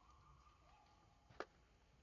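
Near silence, with a faint thin whistle-like tone in the first half and a single sharp click about one and a half seconds in.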